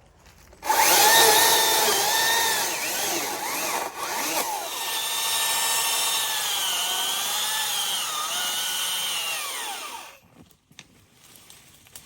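Stihl MSA 300 battery-powered chainsaw cutting wood: the electric motor whines up suddenly about a second in, its pitch wavering and dipping under the load of the cut, then winds down and stops near the end.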